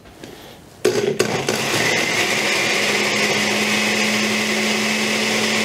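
Countertop blender switching on about a second in and running steadily with a motor hum, puréeing chunks of carrot, celery and onion in broth into a smooth liquid.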